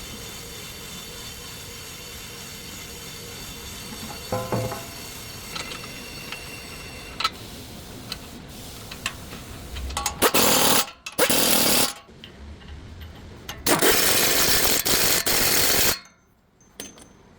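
A power tool running in two bursts of about two seconds each, starting and stopping sharply, after a stretch of low steady mechanical hum.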